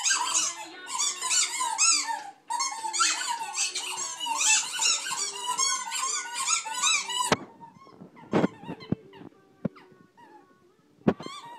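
Rubber squeaky dog toy squeaked over and over in quick succession as a Doberman puppy chews on it, with short breaks. The squeaking stops about seven seconds in, leaving a few scattered sharp knocks.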